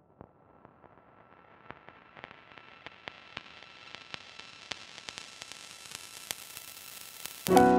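Lo-fi track intro: record-style crackle and hiss fading in, growing louder and brighter, with scattered sharp pops. Piano chords come in just before the end.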